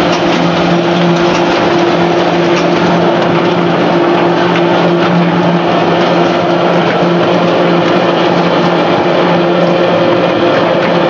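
French fry processing line machinery running: electric gear motors driving mesh-belt and inclined flighted conveyors. It makes a steady hum over a constant rushing noise that does not change.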